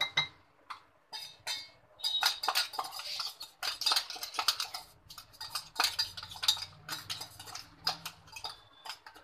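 Metal spoon scraping and tapping inside a stainless-steel mixer-grinder jar, knocking ground roasted-chickpea powder out into a bowl. It starts with a few scattered taps and becomes a busy, irregular run of scrapes and clinks from about two seconds in.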